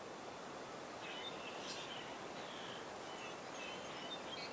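Small birds chirping faintly, a scatter of short high calls starting about a second in, over a steady faint outdoor hiss.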